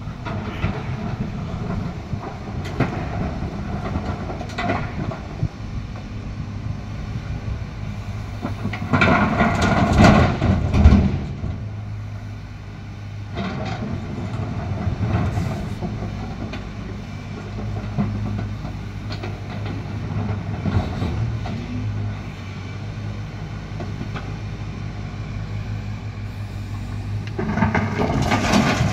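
Volvo EC210 crawler excavator's diesel engine running steadily under hydraulic work while loading rock into a dump truck, with stones clattering and knocking at intervals. It gets louder and more clattery about ten seconds in and again near the end.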